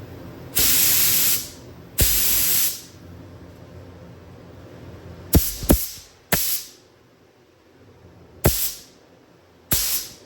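Harbor Freight Spectrum spray gun loaded with primer, triggered in short hissing bursts to test its spray fan pattern. Two longer bursts of nearly a second come first, then five shorter ones.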